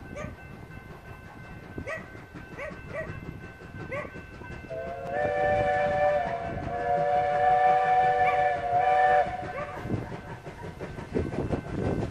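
SAR class 24 steam locomotive whistle sounding one long blast of several notes at once. It starts about five seconds in and is held for about four and a half seconds, with a brief dip in the lower notes partway through.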